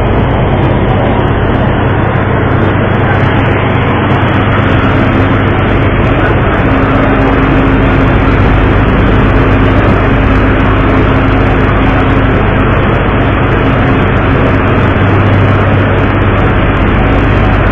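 Loud, steady rumble and rush of a ship under way: a low engine drone beneath a wide rushing noise of wind and water, with a faint held hum in the middle.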